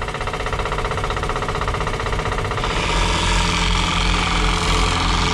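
Heavy diesel engine of earthmoving machinery running with a rattly knock. It grows steadily louder over the first couple of seconds, then runs harder and steady from about two and a half seconds in.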